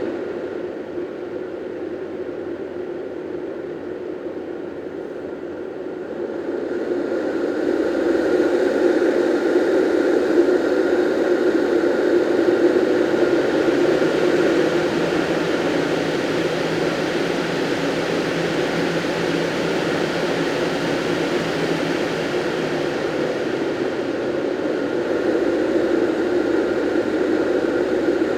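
SNOOZ Breez white noise machine running both its sound fan and its air-circulating fan: a steady rushing fan noise that grows louder and brighter about seven seconds in, then holds steady.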